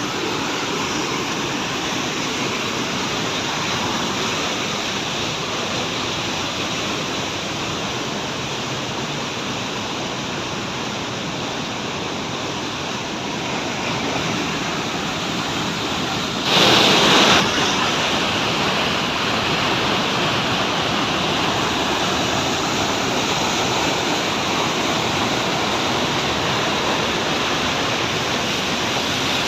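Waterfall rushing: a loud, steady wash of falling water, with one louder burst of noise lasting about a second a little past the middle.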